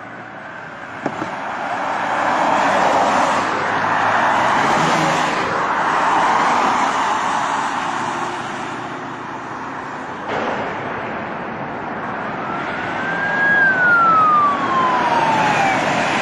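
Steady rushing road-vehicle noise with a police siren: one wail rises and then falls slowly near the end. The noise changes abruptly about ten seconds in.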